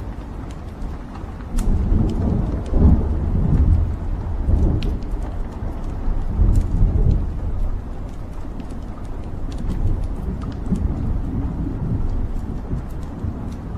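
Wood fire burning in a fireplace: a low rumble of flames that swells from about two to seven seconds in, with scattered sharp crackles and pops from the burning logs.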